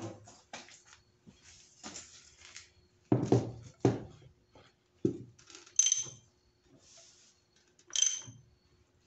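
Metal clunks and clinks from the rotating assembly of a bare Honda D16Y7 engine block as its crankshaft is turned over. There are a few sharp knocks about three to four seconds in and again about five seconds in, then two short ringing clinks near six and eight seconds.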